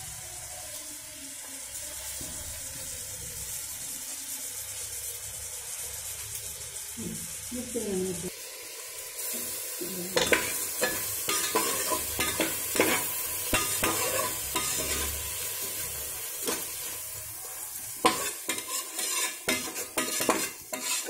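Raw basmati rice frying in oil in an aluminium pressure cooker: a steady sizzle, then from about ten seconds in a metal ladle stirring it, scraping and clinking against the pot again and again.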